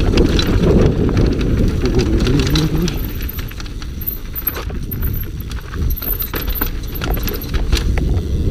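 Scott Gambler downhill mountain bike clattering over roots and stones at speed: a steady metallic rattle with many sharp knocks from the wheels and frame.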